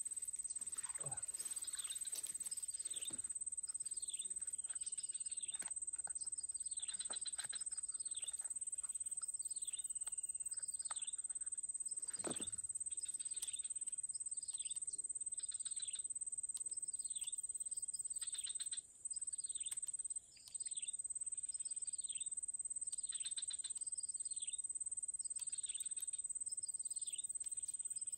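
A bird calling over and over, short falling notes about once a second, over a steady high-pitched whine that breaks off twice briefly midway.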